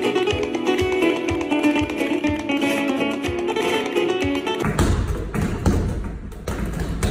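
Acoustic guitar music, strummed notes over a steady tapping beat, which stops abruptly about four and a half seconds in. Dull thuds and knocks follow, as punches land on a free-standing punching bag.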